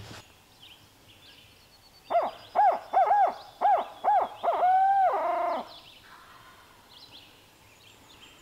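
Barred-owl hooting done as a turkey locator call: about five short rising-and-falling hoots, then a longer drawn-out final hoot that trails off downward. It is meant to make a gobbler shock-gobble and give away his position.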